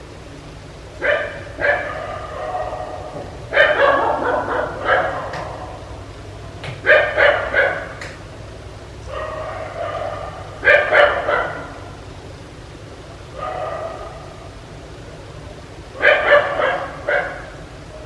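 Dog barking in volleys of several quick barks, with pauses of one to two seconds between volleys.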